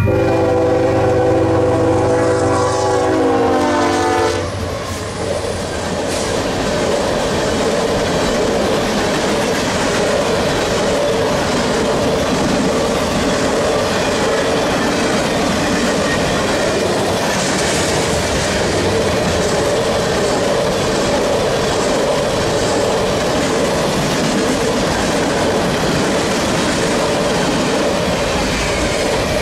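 Freight locomotive's multi-chime air horn sounding a held chord that drops in pitch as it passes, cutting off about four seconds in. Then the freight cars roll by, a steady rumble with the rhythmic clickety-clack of wheels on the rails.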